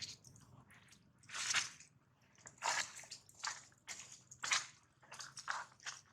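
A baby monkey biting and chewing juicy fruit: irregular wet, squishy smacks and bites, several a few seconds apart.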